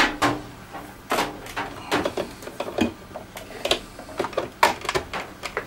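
Irregular clicks and light knocks from a microwave oven being handled and set up for a test run.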